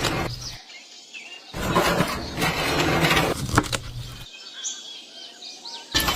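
Two loud bursts of noise with sharp starts and stops, the second lasting almost three seconds with a few knocks in it, and small birds chirping in the quieter gaps between them.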